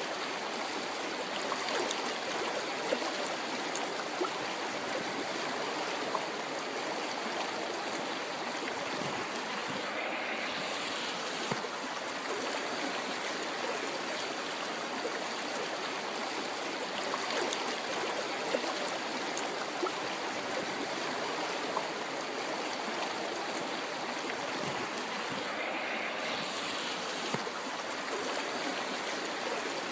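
River flowing: a steady rush of water with occasional small splashes.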